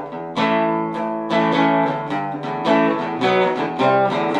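Background music on guitar, chords struck and left to ring with new plucked notes about once a second.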